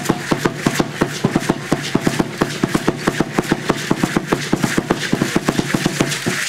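Drum beaten in a fast, steady rhythm of about four beats a second for Aztec dancing, with a rattling shaking along with it.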